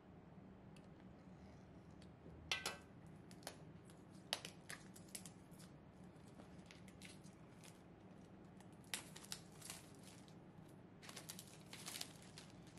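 Clear plastic wrap being torn and peeled off a product box, with scattered crinkles and small snaps, the sharpest about two and a half seconds in and more bunches near the end.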